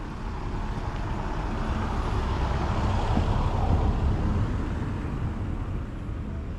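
A road vehicle passing close by: its engine and tyre noise swells to a peak about halfway through, then fades away.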